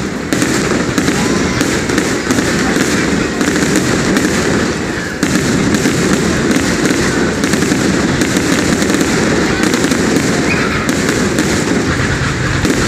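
Aerial fireworks display going off in a dense, continuous barrage of overlapping bangs and crackling, with no break.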